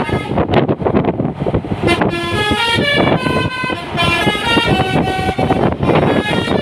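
Basuri 'telolet' multi-tone bus horn playing a tune of short stepped notes, several pitches sounding at once, over the bus's running engine.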